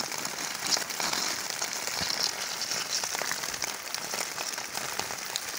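Light rain falling steadily, with scattered small taps and clicks over it.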